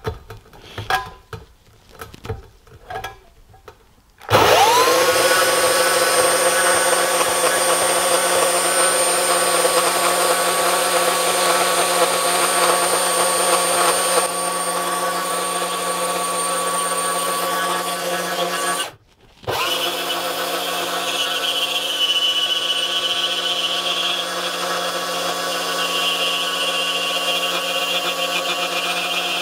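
Hercules 20V cordless brushless deep-cut band saw cutting steel railroad track. After a few knocks, its motor spins up with a rising whine about four seconds in and runs steadily through the cut. A little before two-thirds of the way it winds down briefly and starts again, where the saw was stopped mid-cut and pulled back so the blade guide would not catch on the rail's ledge.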